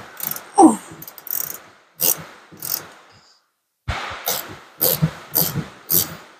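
Hand tool worked in short repeated strokes on rusty heater-box fasteners, about two strokes a second, with a pause midway. There is a brief falling squeak about half a second in.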